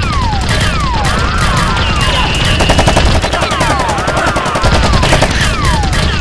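Rapid, continuous gunfire sound effects laid over toy blaster fire, mixed with repeated falling whistle tones like laser or ricochet effects.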